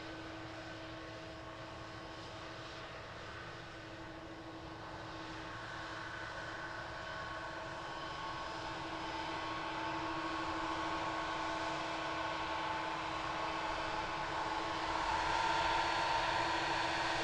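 Boeing 777's twin jet engines running at low taxi power: a steady whine over a rumbling hum, growing louder over the second half as the jet comes closer.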